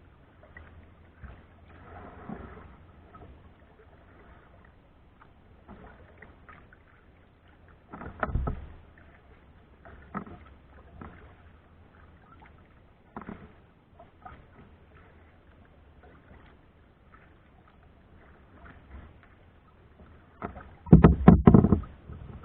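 Kayak being paddled, heard from a camera mounted on the kayak: soft, irregular paddle splashes and small knocks on the hull. There is a louder thump about eight seconds in and a louder run of thumps near the end.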